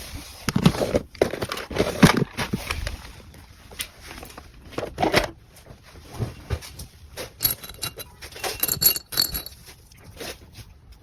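Small items and their plastic packaging being handled and packed: irregular crinkling, clicks and light clacks.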